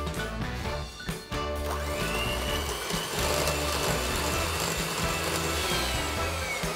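Electric hand mixer beating butter and sugar in a glass bowl. It starts about a second and a half in and runs steadily with a whine that rises and later falls. Background music plays under it.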